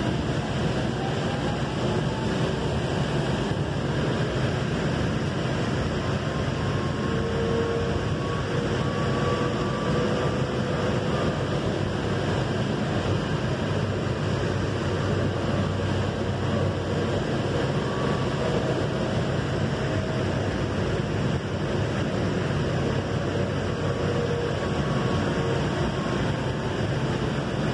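Valley Metro light rail train running, heard from inside the passenger car: a steady running noise with faint whining tones that come and go.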